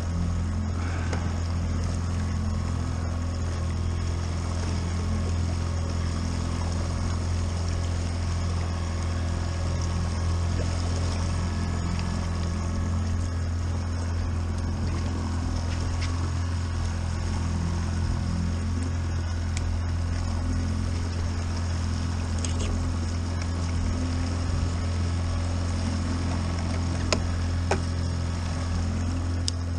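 Boat motor running steadily at trolling speed: an even low drone with water noise over it, and a few sharp clicks near the end.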